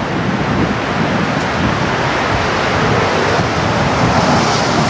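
Strong tornado winds: a loud, steady rushing noise, with wind buffeting the microphone, as the tornado passes a few blocks away.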